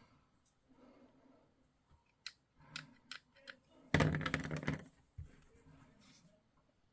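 Plastic model kit parts being handled and clipped from the sprue with sprue cutters: scattered sharp clicks and snips, with a short, louder clatter of plastic about four seconds in.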